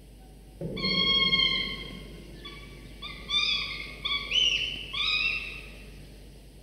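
Peregrine falcon chicks giving food-begging calls while being fed: one long even-pitched call starting about half a second in, then a run of four or five shorter calls that step up and down in pitch.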